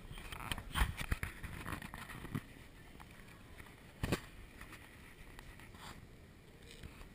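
Low background hum with a few irregular knocks and rubs from a handheld camera being moved about. The loudest knocks come about a second in and about four seconds in.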